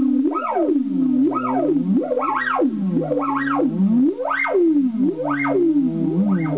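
Burns B3 theremin played through a Korg PX-3 effects processor and a Fender guitar amp: a steady low electronic tone under pitch swoops that rise high and fall back about once a second.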